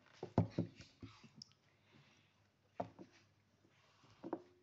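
A few short clicks and knocks of a glass mug being handled on a wooden tabletop: a quick cluster about half a second in, a single knock a little before three seconds in as the mug is lifted, and a short sound just after four seconds in as it reaches the mouth.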